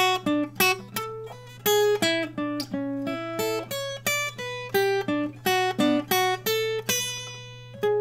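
Steel-string acoustic guitar played as a single-note melodic line: separate plucked notes, one at a time, at an uneven pace of about two or three a second. A longer note rings out near the end.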